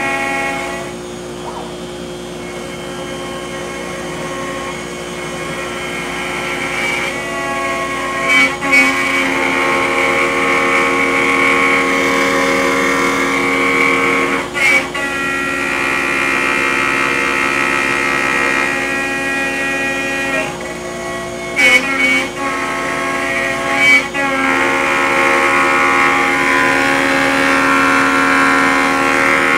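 CNC router spindle driving a quarter-inch long roughing end mill through very hard Honduran rosewood: a steady, multi-toned whine with cutting noise. The cut swells over the first several seconds, and a few brief sharp dips and jumps come as the bit works along the pocket.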